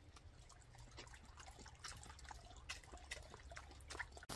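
Water poured from a soft flask into a collapsible silicone dog bowl: a faint trickle with scattered small irregular clicks and splashes.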